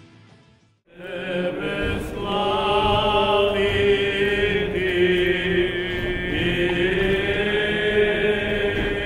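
Background music fades out, then after a brief gap Orthodox Easter church chanting begins: voices singing a slow melody with long held notes.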